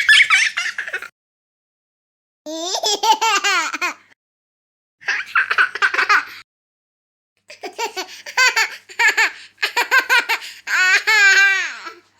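Baby laughing in several separate clips with silent gaps between them: short bursts of high-pitched, breathy giggles and belly laughs, the last one longer and rising and falling in pitch.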